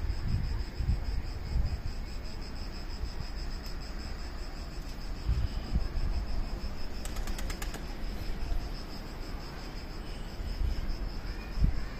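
Crickets chirping in a steady, evenly pulsing high trill, with irregular low rumbles of wind on the microphone. A short run of faint clicks about seven seconds in.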